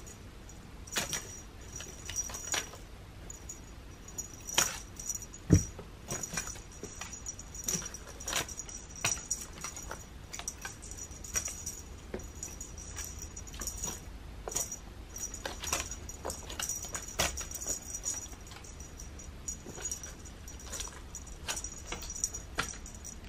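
A cat batting at a dangling wand toy: light jingling and rustling with scattered taps and clicks, and one louder thump about five and a half seconds in.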